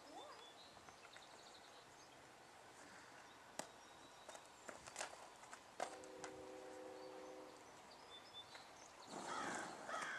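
Quiet outdoor ambience with a few scattered light clicks and a brief humming tone about six seconds in. Near the end, footsteps and hoof steps on sand as the horse starts to walk.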